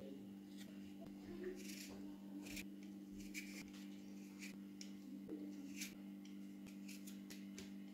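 A Y-shaped vegetable peeler scraping skin off a potato, in a dozen or so short, uneven strokes, over a steady low hum.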